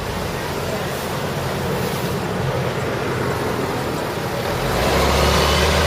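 City street traffic noise, with a vehicle engine's low hum growing louder near the end.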